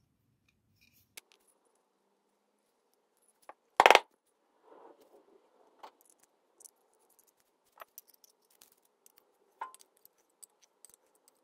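Small metal parts clicking and clinking as new brass contact pins are fitted into a contactor body and their nuts tightened with a small spanner, with one loud sharp knock about four seconds in.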